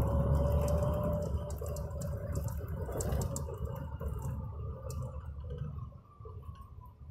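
City bus running, heard from inside the cabin: a low engine and road rumble with a steady whine for the first second or so and light rattles, dying away over the last few seconds.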